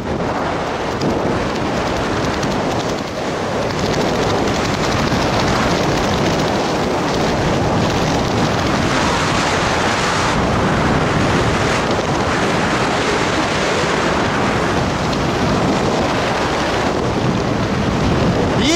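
Steady rush of wind buffeting the microphone from fast airflow during a jump's descent.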